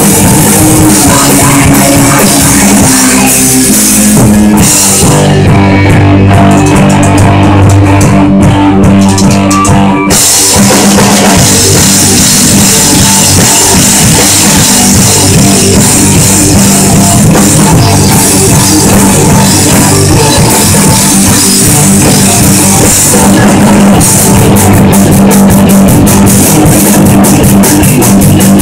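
Punk rock band playing live and loud: distorted electric guitars and a drum kit, with no singing. About five seconds in the cymbals drop out for about five seconds while the guitars hold low chords over drum hits, then the full band crashes back in.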